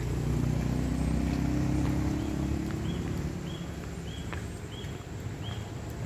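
A motor vehicle's engine passes close by, loudest in the first half and then fading away, while a bird repeats a short high chirp roughly every half second.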